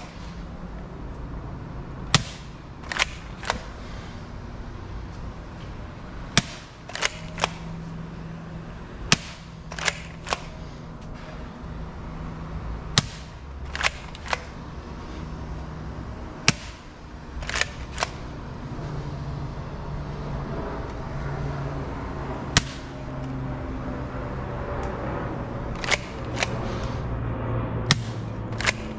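Bug-A-Salt 3.0 salt gun being fired and cocked: about twenty sharp snaps and clacks at irregular spacing, some in quick pairs or threes, over a faint steady low hum.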